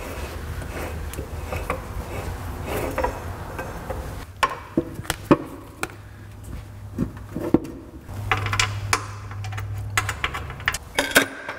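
Scattered metallic clicks and knocks as a steel transmission crossmember is handled into place under a truck, over a low steady hum.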